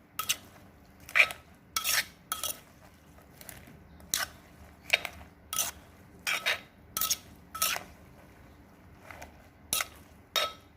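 Pestle and spoon knocking and clinking in a mortar as a pounded noodle salad is worked and mixed. The knocks are sharp and irregular, about one or two a second, some with a short ring.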